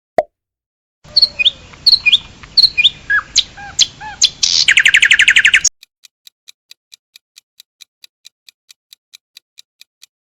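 A birdsong-style phone notification sound: a run of chirps and short rising whistles ending in a fast trill. It is followed by a countdown timer ticking softly, about three ticks a second.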